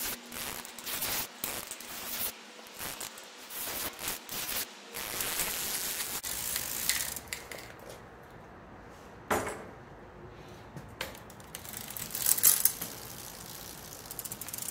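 Bicycle drivetrain turned by hand in a workstand, the chain clicking and rattling over the chainrings, derailleur pulleys and freewheel. Spray lubricant is being worked into a stiff, gummy new-old-stock chain that was making the cranks drag.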